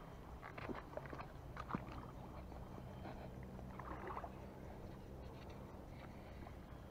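Spinning reel being wound in against a hooked fish: a faint, steady whir with a few soft clicks.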